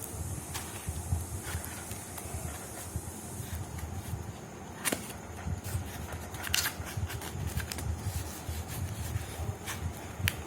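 Wind buffeting the microphone in an uneven low rumble, with a sharp click about halfway through and a few short rustling scrapes of something being handled.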